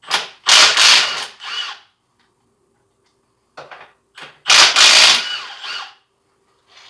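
Impact wrench spinning off lug nuts in two short bursts of rapid hammering, the second about four seconds in, as the last two lug nuts come off a car wheel.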